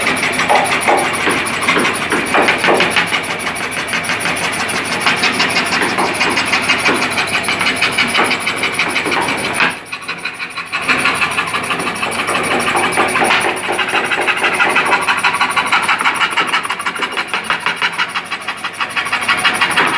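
Homemade scroll saw with a wooden upper arm running, its blade stroking rapidly up and down as it cuts a curve in a wooden board, a steady fast chatter. The sound drops briefly about ten seconds in, then picks up again.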